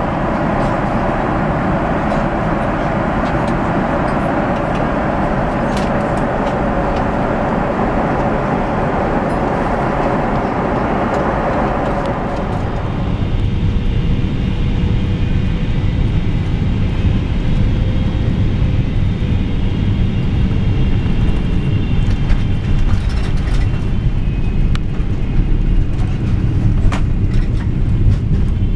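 Steady cabin noise inside a Boeing 777-300 airliner, air rushing and engines running. About halfway through it changes abruptly to a deeper rumble as the aircraft comes in to land.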